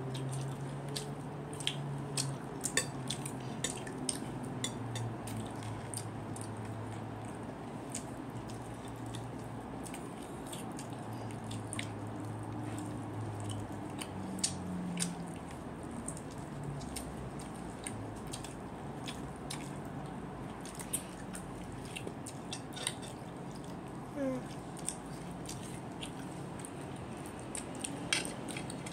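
Eating at the table: a fork clicking against a bowl and chewing, heard as many scattered sharp clicks over a steady low background hum.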